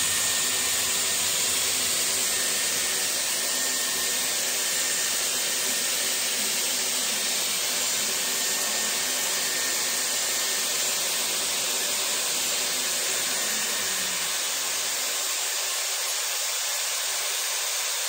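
Dyson Airwrap Complete Long hair styler running steadily on its curling barrel: a loud rush of air with a thin high whine as the barrel draws in and holds a section of damp hair. About fifteen seconds in the lower part of the sound thins out as the cool shot takes over.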